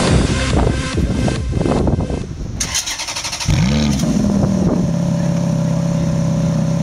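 Electronic dance music for the first couple of seconds. Then, about three and a half seconds in, a Ferrari F430's V8 starts with a short rev flare that rises and falls before settling into a steady idle.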